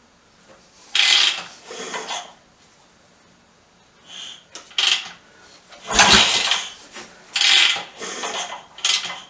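A BSA B44 single-cylinder engine being kicked over again and again, each kick a short rasping clatter from the kickstart mechanism and the engine turning over, without ever firing: the engine will not start. The kick about six seconds in is the loudest, with a low thump.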